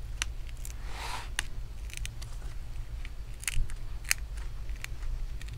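Double-sided adhesive tape crackling and snapping as a metal pry tool separates an HP 14 laptop's plastic screen bezel from it: scattered sharp clicks, with a brief scraping rush about a second in.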